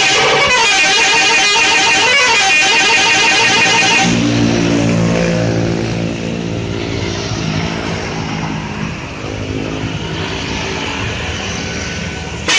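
Guitar music for about four seconds, then an abrupt change to a bus's multi-tone 'telolet' horn sounding a tune over engine and street noise.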